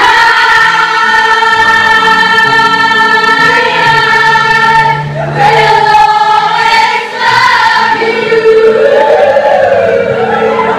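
A group of voices singing together in long held notes, moving to a new note about five seconds in and again near eight seconds.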